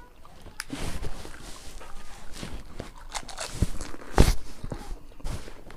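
Panipuri being eaten: irregular crisp crunches of the hollow fried puri shells breaking, with chewing and small clicks. The sharpest crunch comes about four seconds in.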